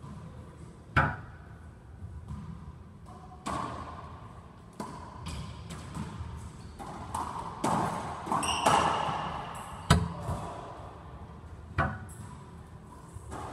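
Racquetball rally: the hollow rubber ball struck by racquets and smacking off the court walls, a series of sharp, echoing pops. The loudest hits come about a second in and about ten seconds in, with a busier stretch of play just before the second one.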